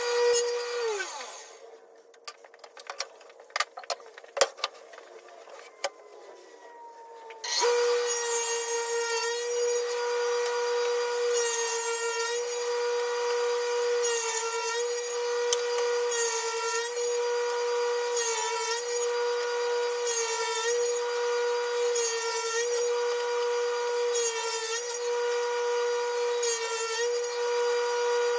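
Table saw spinning down in the first second, then a few seconds of wooden clicks and knocks as pieces are handled. The saw starts again about seven seconds in and runs steadily. About every two seconds its pitch dips under load with a burst of hiss as the crosscut sled carries a glued-up hardwood board through the blade, cutting off one end-grain strip after another: about ten cuts.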